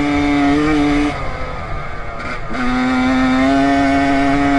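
Honda CR 125 two-stroke dirt bike engine running hard at high revs at a steady pitch, throttle closed about a second in, then opened again about halfway through and held.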